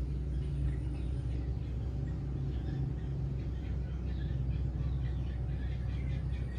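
Outdoor background ambience: a steady low rumble with faint, scattered high chirps. It cuts off abruptly at the very end.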